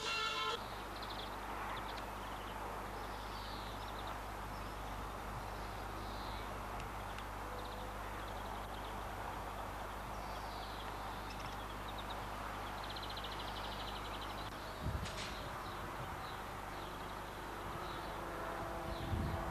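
Outdoor ambience of small birds chirping, with a rapid trill about two-thirds of the way through, over a steady low hum. Two brief low thumps come near the end.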